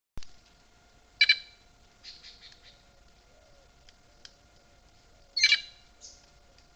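An animal giving two loud, short, harsh calls about four seconds apart, with fainter calls in between.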